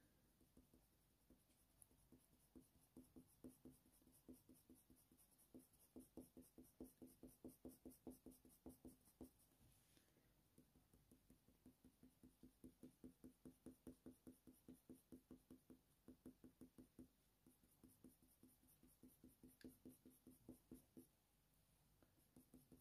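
Faint, quick short strokes of a Faber-Castell Polychromos coloured pencil hatching on hot-press watercolour paper, about four or five strokes a second, in runs that pause and start again a few times.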